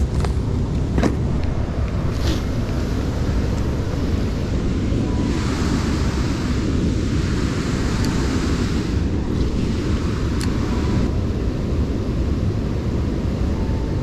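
Steady low roar of water rushing through a spillway, with a brighter hissing layer for about six seconds in the middle.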